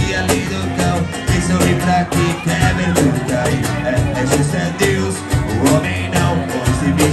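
Live acoustic band playing a groove: a steady cajón beat with electric bass and strummed acoustic guitar, and men singing into microphones.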